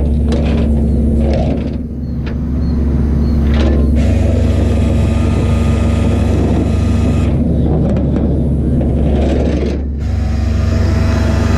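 Tow truck engine running with a steady low drone and hum. It grows louder about four seconds in, and a few clicks and knocks come in the first few seconds.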